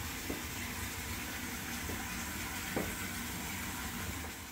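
Steady hissing background noise with a low rumble and a few faint light clicks, fading out near the end.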